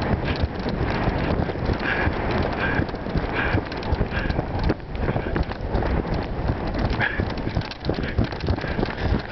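Shoes scuffing, stamping and crunching in icy snow, many quick irregular strokes one after another.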